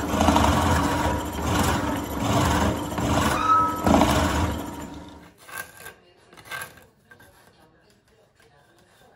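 Drill press boring a wide, flat-bottomed hole into a laminated hardwood block, the cutting noise swelling and dipping as the bit is fed into the wood. It stops about five seconds in, followed by two light knocks.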